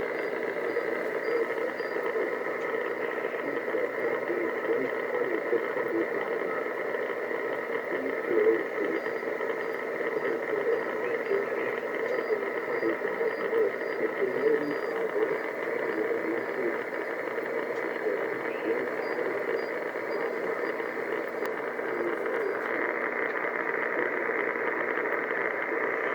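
Shortwave receiver in upper sideband giving a steady hiss of static and band noise, held within a narrow voice-width band, with a few faint whistling tones. The marine weather broadcast has faded into the noise as the band closes.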